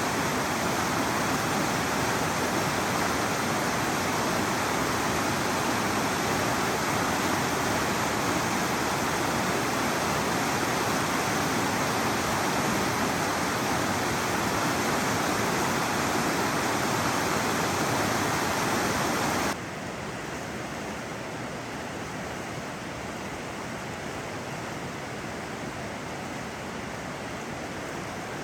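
Salmon River water rushing steadily over rocks. About two-thirds of the way through it cuts suddenly to a quieter stretch of the same river.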